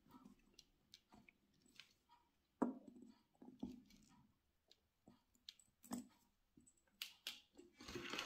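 Faint, scattered clicks and light taps of metal needle-nose pliers and wire against a ceramic bowl as a wire holding a drainage mesh is bent into place, with a sharper tap about two and a half seconds in.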